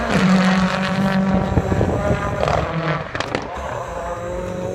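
Turbocharged RX3 rallycross car engine revving hard at speed, with a handful of sharp cracks and pops about two and a half to three and a half seconds in, after which the engine sound drops back somewhat.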